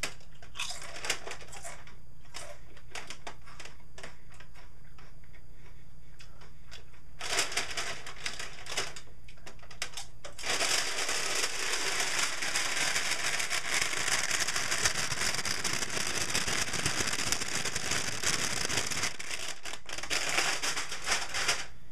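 SunChips compostable bag, made of plant-based PLA film, crinkling as it is handled: scattered crackles at first, then a dense, continuous crackle from about ten seconds in.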